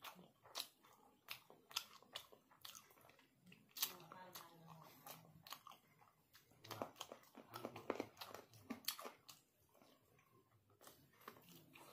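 A person eating spicy noodles and a chicken leg close to the microphone: chewing with many short wet smacks and clicks of the mouth, quiet overall.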